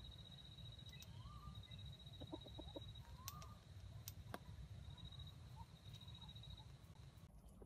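Faint, quick clucking from a rooster: a run of about five short notes a little over two seconds in, with a couple of short rising chirps. Behind it is a steady high whine and a low rumble, with a few sharp clicks.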